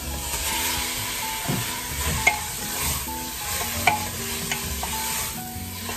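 Raw beef chunks sizzling in hot oil with browned garlic and onion in an aluminium pressure-cooker pot as the meat starts to sear. A spatula stirs them, with two sharp taps about two and four seconds in.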